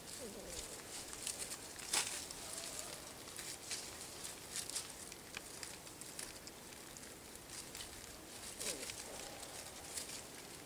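Golden retriever puppies' paws scrabbling and rustling through dry leaves and twigs: scattered light crackles and ticks, with a sharper snap about two seconds in. A couple of faint short whimpers, one near the start and one near the end.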